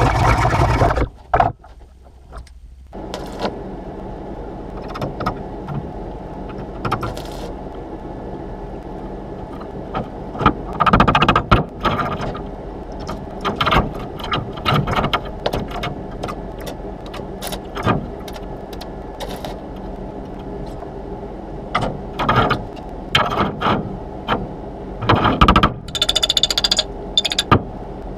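A grinder running on metal cuts off about a second in. After a short lull comes a steady hum, broken every few seconds by short loud bursts of crackling and scraping metal.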